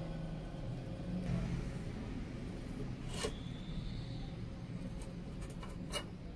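A steel square set down on a steel circular saw blade: a sharp metallic clink that rings on for about a second, then a few lighter clicks and another sharp tap near the end as the square and marker pen are handled on the blade. A steady low hum runs underneath.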